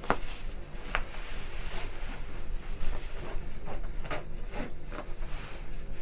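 Winter clothing rustling as it is fastened up, with a few sharp clicks or snaps spread through, over a steady low hum.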